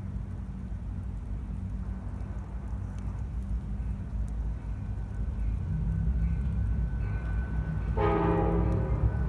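Diesel locomotive rumbling as a train approaches, growing slowly louder, with a short horn blast about eight seconds in.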